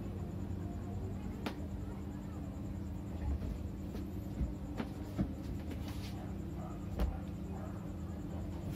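A few scattered clicks and taps as papaya slices are handled over a plastic food container, over a steady low hum.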